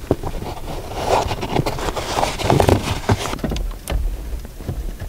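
Handling noise from a car dashboard: loose wiring rustling and many irregular clicks and knocks of plastic trim as a car stereo is pushed back into the dash, with a few dull low bumps in the second half.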